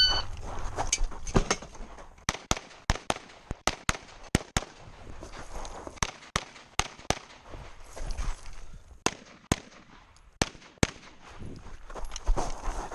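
A shot timer's start beep, then a string of 9mm pistol shots fired in quick pairs and short bursts with brief pauses between, as a competitor runs a match stage.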